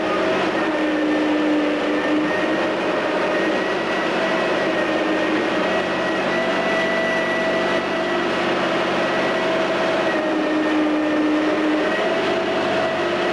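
Menck cable excavator's diesel engine running steadily under a constant rushing noise, its humming tones shifting a little up and down in pitch.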